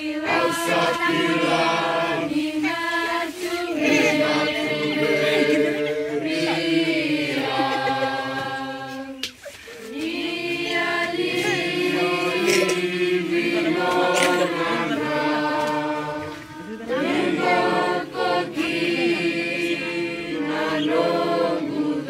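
A group of voices singing together in harmony without instruments, holding long notes in phrases with short pauses between them.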